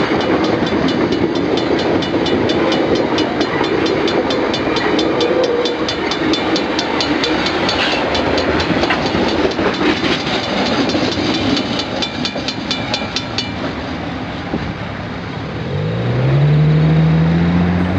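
Loaded hopper wagons of a freight train rolling past, steel wheels clattering over the rail joints, with a level-crossing warning bell ringing rapidly that stops about two-thirds of the way through. Near the end, once the train has cleared, a road vehicle pulls away across the crossing, its engine rising in pitch.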